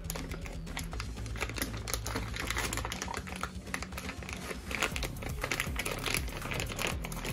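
Clear plastic parts bag crinkling and crackling in the hands as it is turned over and handled, a dense run of small irregular crackles.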